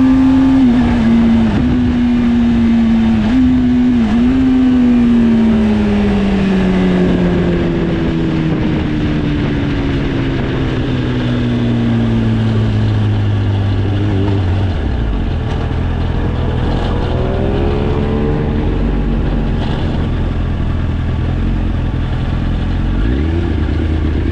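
Sport motorcycle engine, revs held high with a few brief dips, then falling steadily over several seconds as the bike slows, settling low and even with a couple of short blips of throttle.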